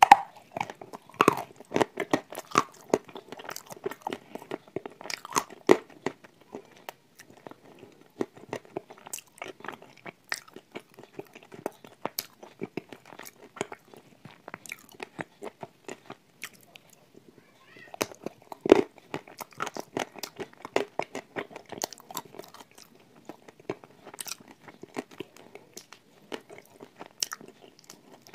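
Close-miked crunching and chewing as a person bites off and chews hard, brittle pieces of a flat 'Turkistan tile' snack. There is a loud bite at the start and another about 19 seconds in, with a quieter pause just before it.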